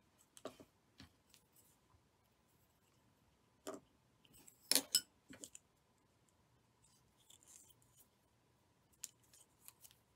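Faint clicks and rustles of a plastic tatting shuttle and thread being handled, with a sharper cluster of clicks about four to five seconds in.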